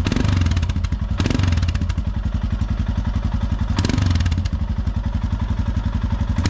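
Royal Enfield Himalayan's single-cylinder engine idling through a newly fitted Delkevic carbon fiber slip-on exhaust, with an even, fast thump and a deep tone. It is quite a bit louder than hoped, with a couple of brief swells about a second and four seconds in.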